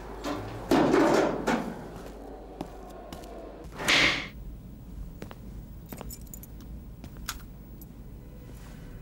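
Keys jangling at a metal mailbox, with a short metallic rattle about four seconds in as the key works the lock, then a few light clicks.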